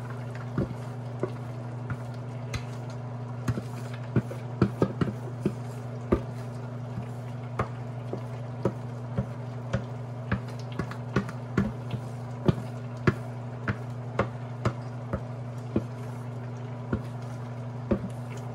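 Wooden spoon tapping and scraping against a plate and the rim of a stainless steel pot as chopped vegetables are pushed in: many irregular sharp clicks over a steady low hum.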